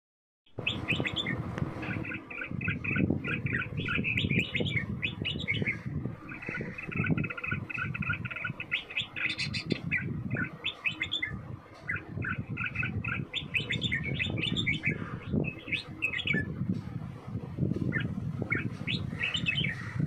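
Red-whiskered bulbuls calling, a run of short, quick chirping notes repeated throughout, over a low background rumble.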